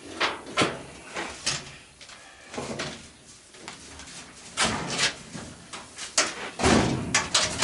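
Irregular knocks and clanks of metal parts being handled during the teardown of a washing machine, with the loudest bunch of clatter near the end.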